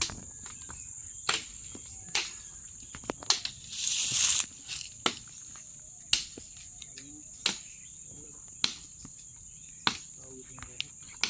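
A steady high-pitched drone of insects, with irregular sharp clicks and knocks about once a second and a short hissing rush about four seconds in.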